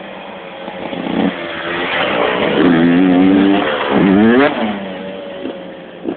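125 cc two-stroke motocross bike revving hard as it rides close past, loudest about three to four and a half seconds in. The engine note climbs as it accelerates by, then drops and fades as it moves away.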